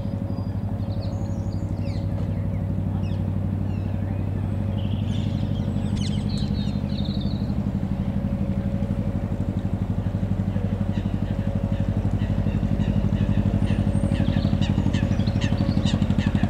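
An engine running steadily, a low drone with a fast even pulse. Short high chirps of small birds come now and then, more often in the last few seconds.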